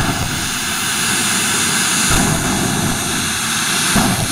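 Jet engine of a jet-powered pickup truck running at the start line: a loud, steady rushing noise with a high hiss, and a short pop about four seconds in.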